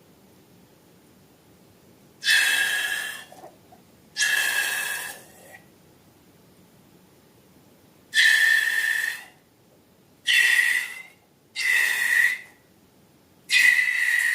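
Air rushing out of a balloon's neck in six short squealing, hissing bursts, each about a second long, with pauses between them.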